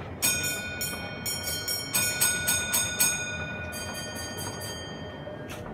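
A small bell struck rapidly over and over, each stroke ringing on, in two runs at slightly different pitches, over steady background noise.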